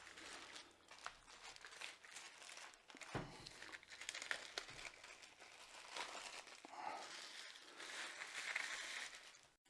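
Faint crinkling and rustling of packaging as the speaker is handled, with scattered light clicks and one duller knock about three seconds in.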